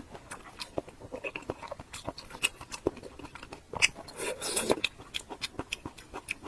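Close-miked eating sounds of someone chewing fatty pork belly: a run of wet mouth clicks and smacks, with a louder, wetter burst of chewing about four seconds in.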